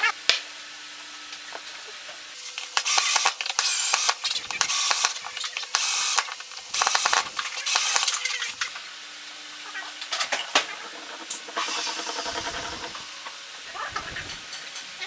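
Metal and wooden parts of a home-made drum sander being handled and fitted together: a run of about six short scraping strokes, roughly one a second, then a longer, softer scrape.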